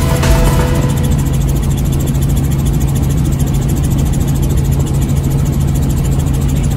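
Steady drone of a helicopter in flight: an even, loud engine-and-rotor hum with a strong low tone.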